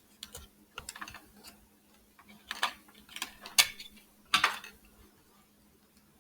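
Paper cutouts and straws being handled while sticky tape is pulled and torn: irregular light clicks and rustles, with three louder short rasping tears in the middle.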